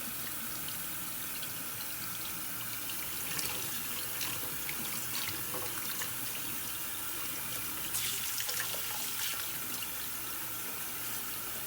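Kitchen faucet running steadily into a sink while cut pineapple pieces are rinsed under it, with a few small splashes.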